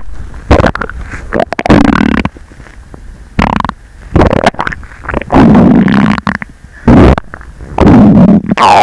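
A person's stomach growling: a string of irregular gurgling rumbles, several in a row with short gaps, picked up by a microphone held against the bare belly.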